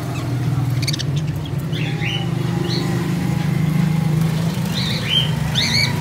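Budgerigars chirping in short, scattered calls over a steady low hum.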